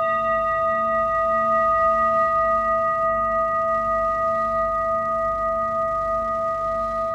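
Singing bowl ringing on after a single strike, several steady tones sustaining and fading slowly, with a softer low tone wavering in slow pulses beneath them.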